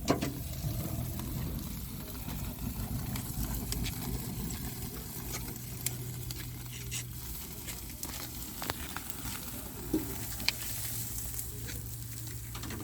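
Food sizzling on a barbecue grill, with scattered small pops and clicks.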